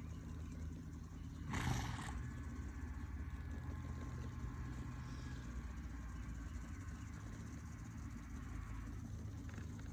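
Horse loping under saddle on soft arena sand under a steady low rumble, with one short, loud rush of noise about a second and a half in.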